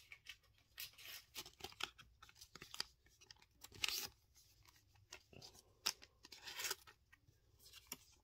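Thin clear plastic card sleeve rustling and crinkling as a trading card is handled and slid into it: a string of short scrapes and crackles, the sharpest about four seconds in.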